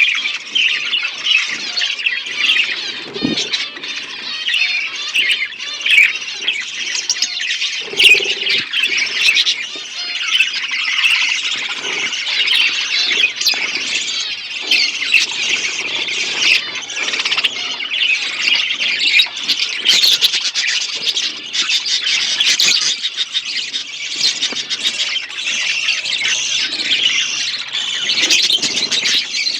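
Many budgerigars chattering and squawking together in a dense, continuous, high-pitched stream of short calls.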